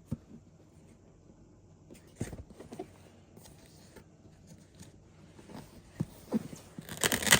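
Cardboard model box being handled: scattered light taps and rustles, with a louder scraping rustle of cardboard near the end.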